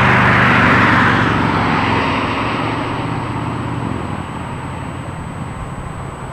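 A vehicle passing close by and moving away: its engine hum and rolling noise are loudest at the start and die down over about four seconds, leaving a low rumble.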